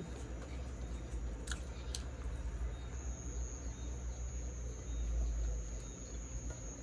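Night insects trilling steadily in one high-pitched tone over a low rumble, with a couple of faint clicks about one and a half and two seconds in.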